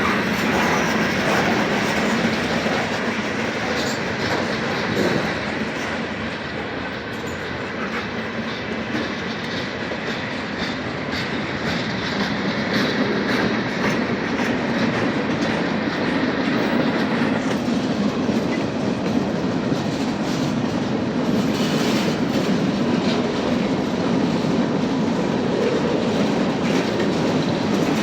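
Norfolk Southern freight train rolling past, a steady rumble of rail cars with their wheels clicking over the rail joints.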